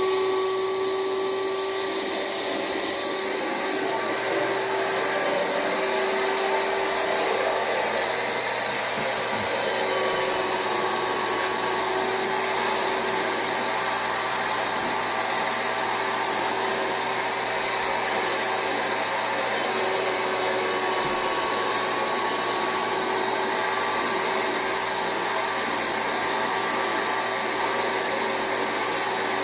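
Rug Doctor carpet extractor running steadily, its vacuum motor whining as the upholstery hand tool sprays and sucks plain water back out of mattress fabric in a first rinse extraction.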